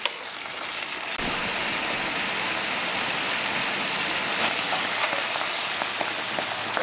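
Sliced onions in a soy sauce and mirin sauce simmering in a frying pan: a steady bubbling sizzle with a few small pops, a little louder from about a second in.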